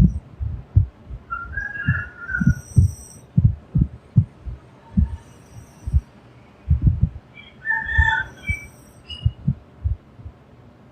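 A sleeping girl snoring: irregular low throaty pulses, a few each second, with a short high nasal whistle about two seconds in and again near the end.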